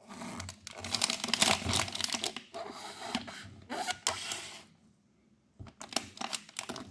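Scraping, crackling and clicking of a thin object being worked into the gap around a laptop's stuck right touchpad button to clean under it; it stops for about a second past the middle, then resumes with a few sharper clicks.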